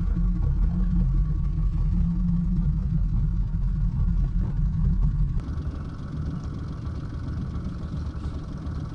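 Small Nissan outboard motor running steadily at trolling speed, a low rumble. About five seconds in it drops in level and a higher hum comes forward.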